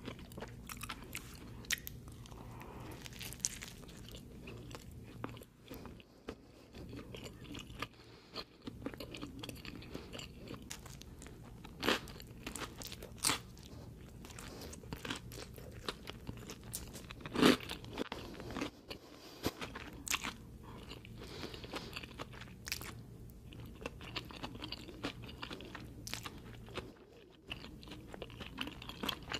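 Close-miked eating of a pepperoni pizza cone: an irregular run of crunchy bites and chewing, the loudest crunch about seventeen seconds in.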